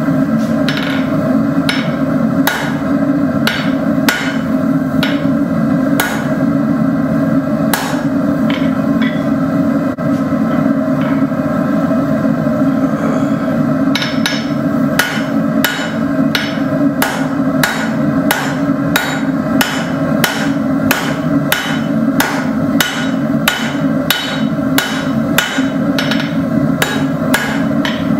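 Hand hammer striking hot 5/16-inch steel rod on an anvil, forging it: spaced blows about once a second at first, a lull of a few seconds, then faster, steady hammering at two or three blows a second through the second half. A steady low drone from the running forge lies underneath.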